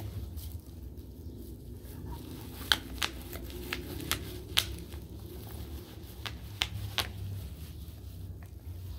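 A German Shepherd biting and tugging at bubble wrap: the plastic crinkles and rustles, and bubbles burst as sharp pops, about ten of them, most in the middle of the stretch.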